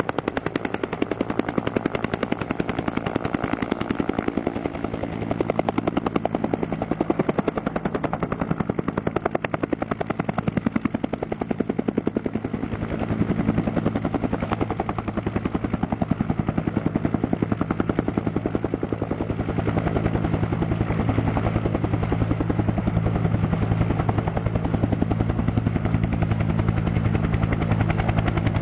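Helicopter with a two-bladed main rotor, the rotor beating in rapid, even pulses over a steady low engine hum as it hovers low and sets down on its skids.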